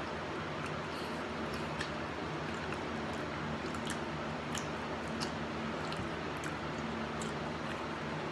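Wet eating sounds of someone eating saucy chicken wings: chewing and lip smacks, heard as scattered small clicks over a steady low hum.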